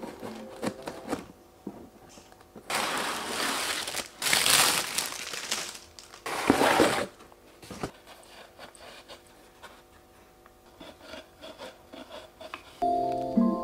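Unboxing a flat-pack side table: cardboard box cut open with scissors, then the cardboard scraping and rustling in three loud stretches of a second or so each as the white top is pulled out. After that come quieter irregular clicks and rubbing as the wooden legs are fitted into the top.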